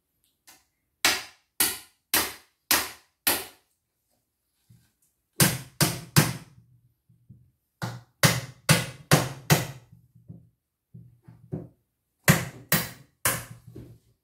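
Hammer blows on a wooden slat, sharp strikes in quick runs of three to six about half a second apart, with a few lighter taps between the runs.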